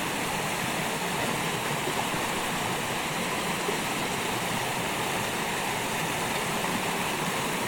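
River water flowing steadily: an even, unbroken wash of current noise with no breaks or changes.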